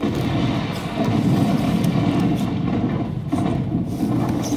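A loud, low rumbling sound effect played over the theatre's speakers, starting abruptly, dipping briefly near the end, then cutting off: the stage cave opening once the code has been given.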